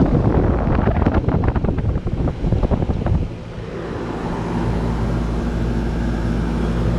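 Air buffeting the microphone for about three seconds, then a steady hum of a freshly rinsed Goodman central air-conditioner condensing unit running, with its compressor's low drone and fan.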